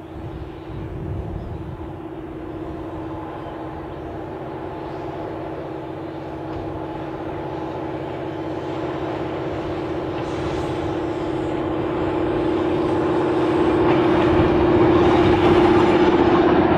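Victorian Railways Diesel Electric Rail Motor approaching and passing: a steady engine drone that grows steadily louder as it nears, with wheel and rail noise rising over the last several seconds as it goes by.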